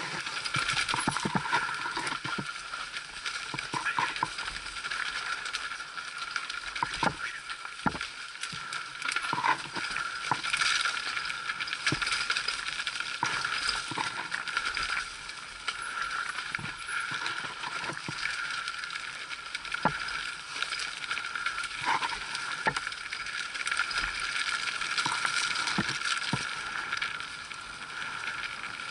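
Mountain bike descending a rough dirt singletrack, heard from a camera mounted on the bike: frequent rattling clicks and knocks as it goes over bumps, over a steady high buzz.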